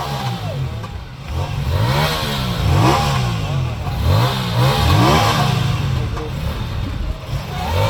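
Aprilia Tuono 457's parallel-twin engine being revved repeatedly at a standstill, its note rising and falling with each blip of the throttle about once a second.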